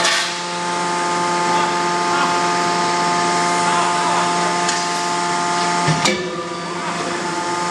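Forging-line machinery for steel grinding balls running with a steady hum of several fixed tones, and one sharp metallic strike about six seconds in, after which the lowest part of the hum drops away.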